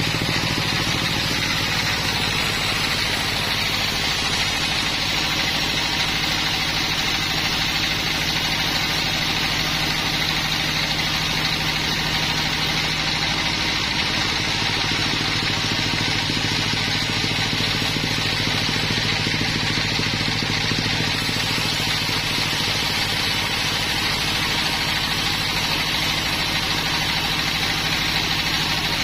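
Sawmill machinery running steadily: an even, engine-like hum with a constant high hiss, no change in load.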